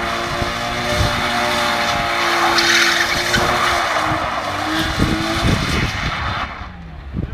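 BMW saloon drifting in circles: the engine is held high in the revs while the spinning rear tyres squeal. About six and a half seconds in, the tyre noise stops and the engine eases off.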